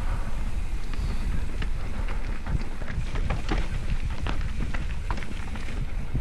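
Mountain bike riding down a dirt trail: wind rumbling on the microphone, with frequent sharp clicks and rattles from the bike and tyres over the rough ground.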